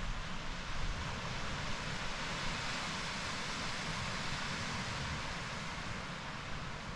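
Sea surf washing on a sandy shore, a steady rushing noise that swells a little mid-way, with wind rumbling on the microphone.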